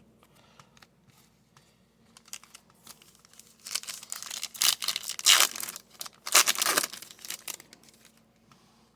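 Foil wrapper of a Topps trading card pack being torn open and crinkled, in a few loud bursts of rustling between about four and seven and a half seconds in.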